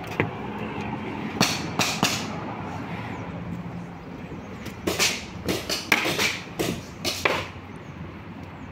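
Paintball shots popping during a game, irregular and sharp: three single pops in the first two seconds, then a quicker volley of about nine between five and seven and a half seconds in.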